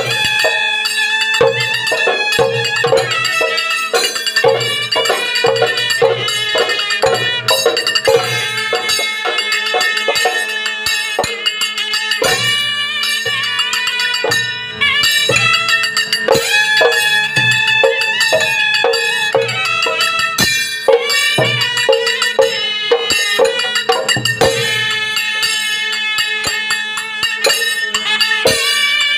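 Live folk percussion ensemble playing in Adi tala, an eight-beat cycle: large double-headed drums beaten with a stick and hand, small hand cymbals clashing on the beat, and a wind instrument carrying the melody over a steady held low tone.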